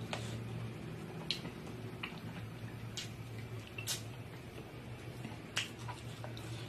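Eating sounds: irregular wet lip smacks and sharp mouth clicks while chewing rice eaten by hand, about seven in all, over a steady low hum.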